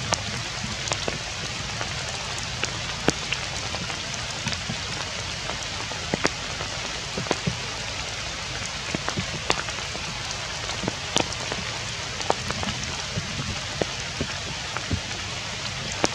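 Steady rain falling, with sharp clicks of single drops landing close by, one or two a second.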